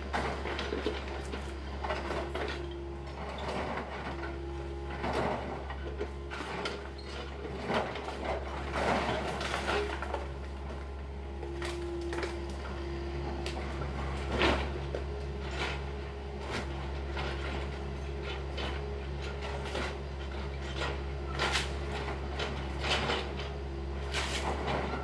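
Hydraulic excavator demolishing a wooden house: its diesel engine runs steadily underneath, while irregular knocks, cracks and clatter of timber debris are broken and dropped. The loudest crack comes a little past halfway.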